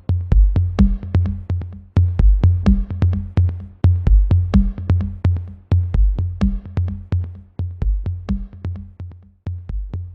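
Electronic background music with a steady drum-machine beat of quick, evenly spaced ticks over a repeating bass line.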